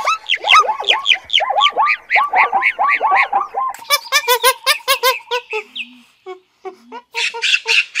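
Zebra barking: a rapid run of repeated calls, about four a second, each rising and falling in pitch. About four seconds in it gives way to a faster series of higher, clipped animal calls, with scattered short calls and another quick burst near the end.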